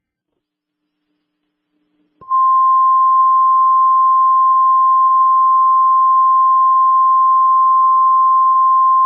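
Weather radio warning alert tone: after about two seconds of near silence a single steady high beep of about 1050 Hz comes on suddenly and holds, the alarm that announces a warning is about to be read.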